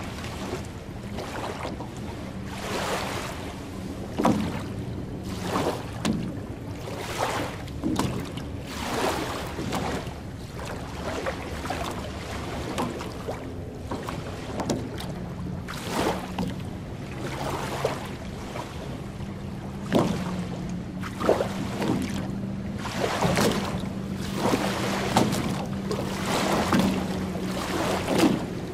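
Small waves lapping and washing onto a sandy lake shore, one soft wash every second or two, with a low steady hum underneath.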